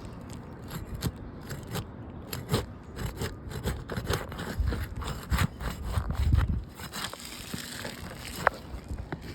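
Scraping and crackling of asphalt roof shingles being pried up and their sealant strips broken, in many short strokes with a few heavier low thuds around the middle. The shingles are delaminating and tearing as they are lifted.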